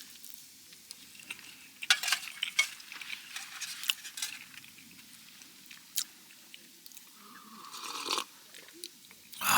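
A person chewing food close to the microphone, with scattered light clicks and a short rushing sound about eight seconds in.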